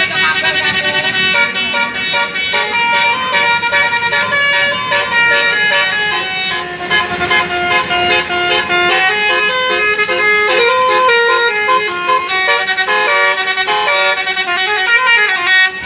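Basuri telolet multi-tone bus horn playing a melody. It starts with a fast run of short repeated notes, then moves to longer held notes that step up and down, and it cuts off abruptly at the end.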